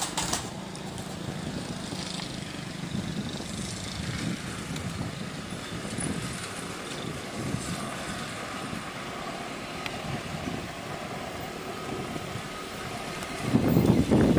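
Diesel locomotive hauling a container freight train as it approaches, its engine heard as a steady distant drone. About a second from the end it gets suddenly louder as the train draws near.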